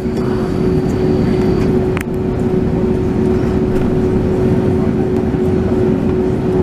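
Cabin noise inside an Airbus A321neo taxiing after landing: the engines run with a steady hum, a constant tone over a low rumble. A single sharp click sounds about two seconds in.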